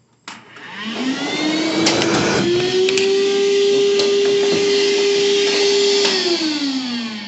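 Vacuum cleaner switched on to suck drilling chips out of a hole drilled in a gun safe's hard plate: a click, a motor whine that rises as it spins up and then holds steady, with a couple of sharp clicks, before it is switched off and winds down near the end.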